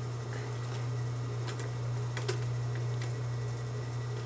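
Consew 225 industrial walking-foot sewing machine turned slowly by its handwheel: scattered, irregular light clicks from the mechanism over a steady low motor hum.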